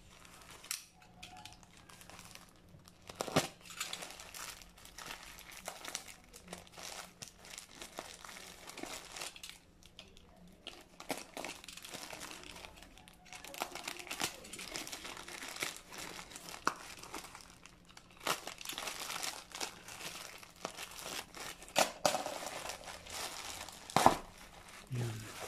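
Plastic courier mailer crinkling and tearing as it is slit open with a utility knife and pulled apart: irregular rustling with sharp crackles, the loudest near the end as the bubble-wrapped package is handled.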